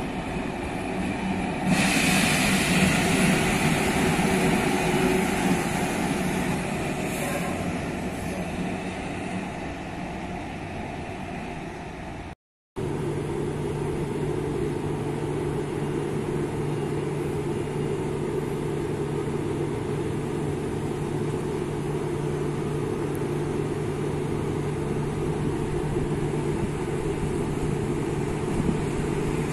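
Electric locomotive passing on the tracks, loudest a couple of seconds in and fading away. After a brief dropout, a passenger electric multiple unit pulls slowly into the station with a steady hum.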